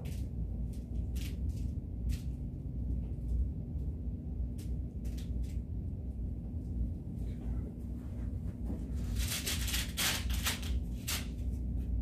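Steady low room hum with scattered faint clicks. About nine to eleven seconds in comes a burst of rustling and handling noise as a chiropractic Y-strap and its handle are repositioned around a patient's head.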